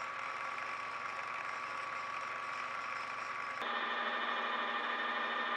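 Milling machine running with an end mill cutting a hex metal bar: a steady machine whir with a thin whine. About two-thirds of the way in it cuts suddenly to a metal lathe turning a small metal part, a slightly louder steady running sound with several held notes.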